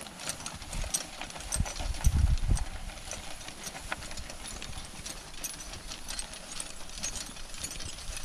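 A harnessed horse walking on grass: soft hoof falls with clicks and rattles of harness. A few louder low thumps come about two seconds in.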